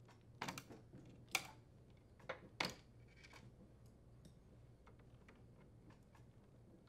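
Several small sharp clicks as push-on wire connectors are pulled off the terminals of an air conditioner's control board: about four in the first three seconds, the loudest about a second and a half in, then only faint ticks.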